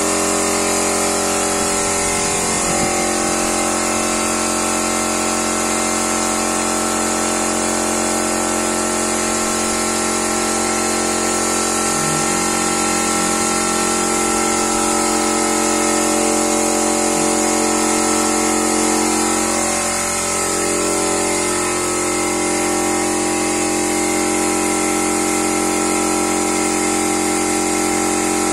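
Small portable piston air compressor running steadily, with the hiss of a compressed-air spray gun spraying PU wood polish.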